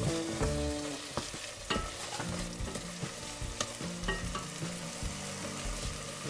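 Wooden spatula stirring thick tomato sauce in a stainless steel pot over a steady sizzle, with a few sharp knocks against the pot. The stirring stops near the end.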